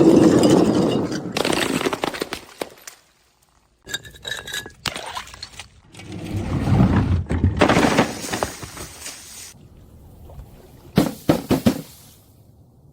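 Glass bottles breaking and being crushed, with crunching, cracking and clinking of glass shards. The sounds come in several separate bursts that start and stop abruptly, with a brief silence about three seconds in and a few sharp cracks near the end.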